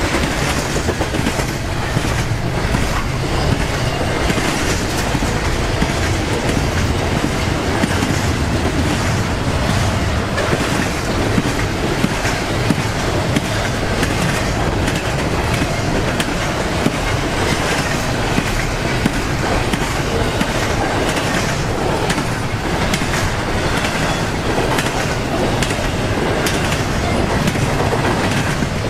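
Freight train cars rolling past, their steel wheels clicking over rail joints amid a steady rumble of wheel and rail noise.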